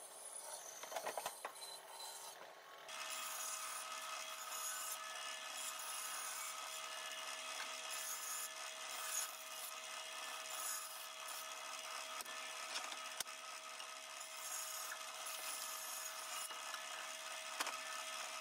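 A Ridgid bandsaw running and cutting through dense olivewood: a steady motor hum with the continuous rasp of the blade in the wood. The sound changes abruptly about three seconds in and then runs on steadily.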